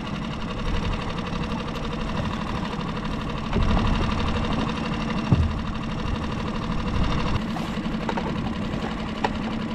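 Small boat's outboard motor running steadily, a little louder from about three and a half seconds in, with one short thud about five seconds in.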